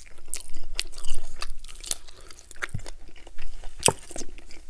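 Close-miked biting and chewing of a crispy fried chicken leg as meat is gnawed off the bone: irregular sharp clicks throughout.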